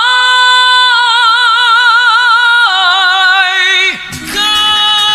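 A high solo singing voice holds a long closing note, steady at first and then with wide vibrato, and steps down to a lower held note partway through. The voice breaks off about four seconds in, and instrumental music with a steady beat carries on.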